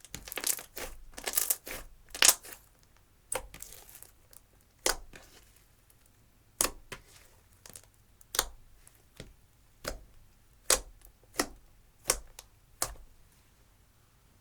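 Slime, clear slime mixed with eyeshadow, being pressed and squeezed by hand. It gives a run of sharp crackling pops, several close together in the first couple of seconds, then about one a second.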